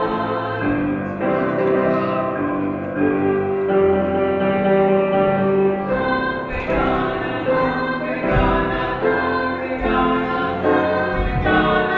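Children's choir singing, with long held notes that change pitch from phrase to phrase.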